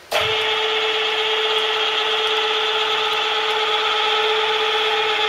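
Tailstock of a Union BFT125/5 horizontal boring machine traversing along its bed on rapid traverse. It makes a steady machine whine that starts abruptly just after the beginning.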